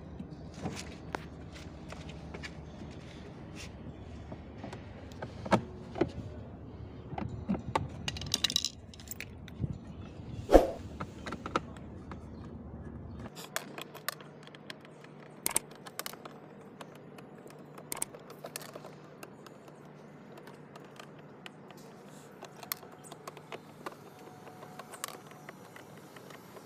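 Clicks, scrapes and knocks of a screwdriver and small metal screws being worked out of a hard-plastic kids' ride-on truck, with one louder knock about ten seconds in.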